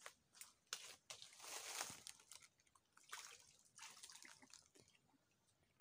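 Faint water splashing and dripping at the surface, in a series of short irregular splashes with a longer wash about a second in.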